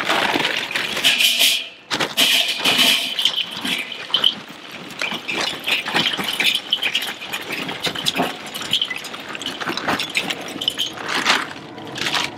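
Chunks of lump charcoal pouring from a paper bag and clattering into the metal charcoal ring of a Weber Smokey Mountain smoker: a continuous run of knocks and rattles.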